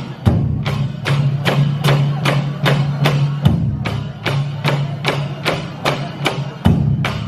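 Background music with a steady percussive beat of about three strokes a second over sustained low notes that shift every few seconds.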